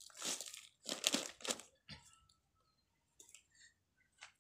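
Plastic crinkling and soil crunching in several short bursts as a seedling is lifted and handled for potting into a plastic grow bag.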